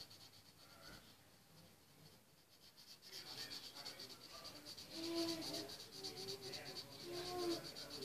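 Marker pen drawing on paper: faint scratchy strokes that grow louder after a few seconds, with short squeaks from the tip.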